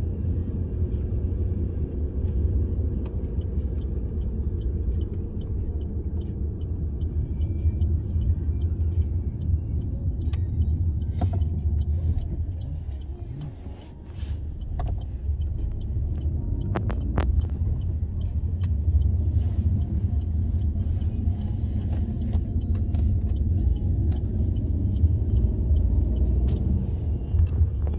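Low, steady rumble of a car's engine and tyres heard from inside the moving car. It drops away briefly about halfway through as the car slows for a roundabout, then builds again as it drives on.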